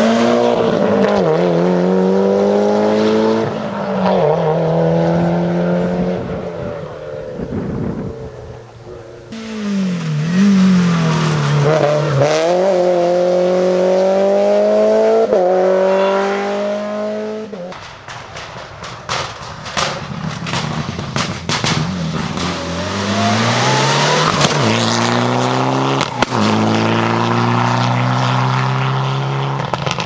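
Rally cars driven hard one after another, each engine note climbing and then dropping back at every gear change, with abrupt changes where one car gives way to the next. About two-thirds of the way in comes a run of short sharp cracks.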